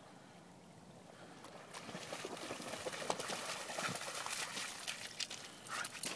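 A husky wading fast through shallow water, its legs splashing with each stride; the splashing starts about a second and a half in and grows louder as the dog comes closer.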